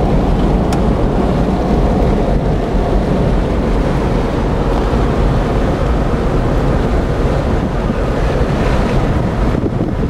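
Wind rushing and buffeting over the microphone from a moving car, with road and engine noise beneath: a loud, steady rushing.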